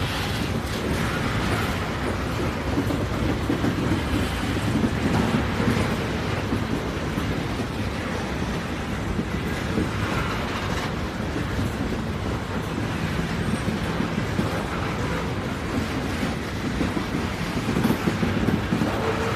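A train running along its track: a steady low rumble with track noise, and no whistle.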